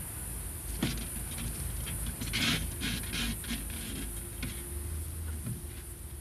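Light, scattered rustling and scratching in dry leaves and soil, a few short bursts with the busiest about two and a half seconds in, over a steady high hiss and low hum.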